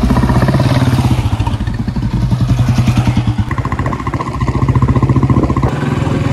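Royal Enfield Bullet single-cylinder engine running under way, its exhaust firing in a quick, even beat. The engine note shifts about halfway through and again near the end.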